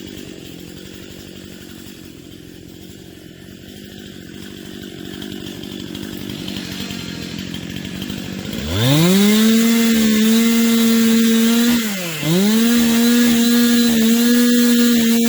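Two-stroke chainsaw running at part throttle, then revved up to a steady high whine about two-thirds of the way through. The revs dip once briefly and climb straight back.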